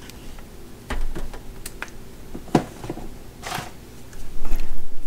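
Scattered clicks, taps and rustles of a battery charger's cables being handled and plugged in, then low rubbing and thumps of the unit being handled from about four seconds in.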